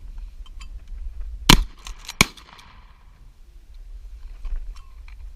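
Two 12-gauge shotgun shots, about a second and a half in and less than a second apart, fired by two shooters at a pair of thrown clay pigeons. Each is a sharp crack with a short echo.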